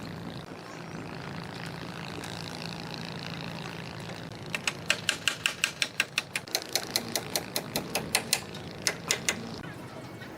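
A fast run of sharp knocks, about five a second, starting about halfway in and lasting about five seconds, over a steady low hum.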